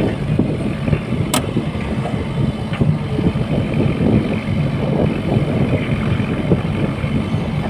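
Sany SY80 excavator's diesel engine running steadily, with a single sharp click about a second and a half in.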